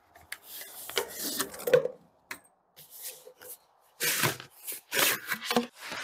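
A rolled flexible solar panel being slid out of its clear plastic carrying tube and set down: irregular rubbing and scraping of plastic against the panel, with a few soft knocks, coming in bursts with a quieter stretch in the middle.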